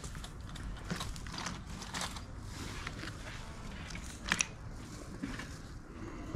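Small things being handled and rummaged in a plastic crate: light clicks and rustles of a cable and small gadgets, with one sharper click about four seconds in.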